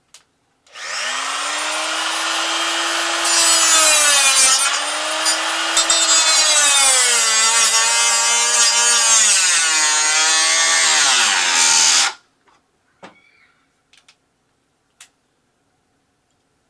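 Electric cut-off tool spinning up, then cutting with a harsh grinding hiss, its motor pitch dropping under load and recovering several times before it stops sharply.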